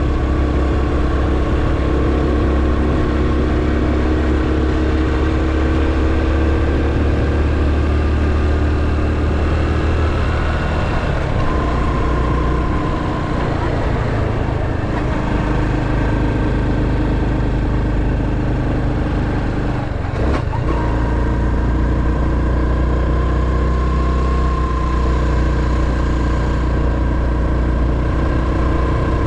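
Honda Super Cub 110's air-cooled single-cylinder four-stroke engine running under way, its note rising and falling gently with the throttle. It eases off briefly about a third of the way in and again about two-thirds in.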